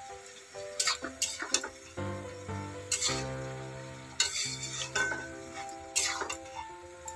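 Metal spatula scraping and stirring vegetables frying in a steel kadai, in a handful of sharp strokes, over background music with sustained notes.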